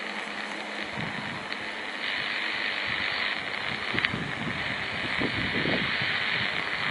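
Distant jet engines of a Boeing 777-200ER landing and rolling out on the runway: a steady roar with a high whine that grows a little louder about two seconds in. Gusts of wind buffet the microphone.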